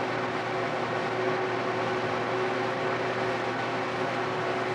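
Steady mechanical hum with a constant low tone over an even hiss.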